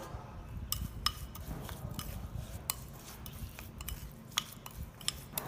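A spoon stirring marinade in a small bowl, with irregular clinks against the bowl's side.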